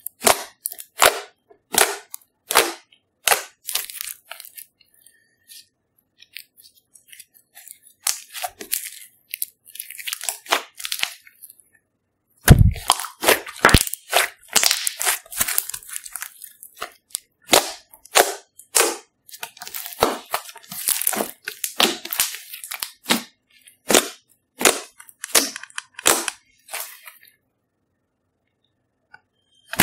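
Thick glossy slime being kneaded, squeezed and poked by hand, giving off irregular sharp pops and crackles as air pockets in it burst. The popping grows dense from about twelve seconds in, starting with a loud low thump, and dies away near the end.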